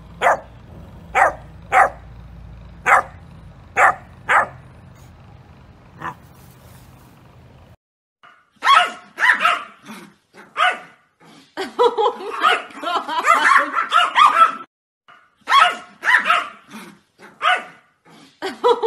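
Dogs barking: sharp single barks about once a second over a low steady hum. After a break of a few seconds come small Yorkshire terriers yapping in quick runs, with short pauses between them.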